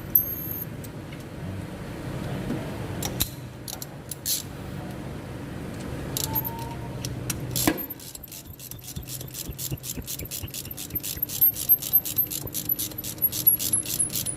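Metal tools clinking a few times, then a ratchet wrench clicking steadily, about five clicks a second, through the second half as a new diesel glow plug is run in.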